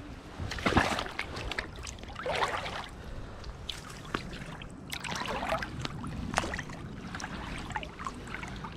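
Water sloshing and splashing around rubber boots as a person wades into a shallow river, a string of irregular splashes, the sharpest about a second in, over the steady sound of the moving water.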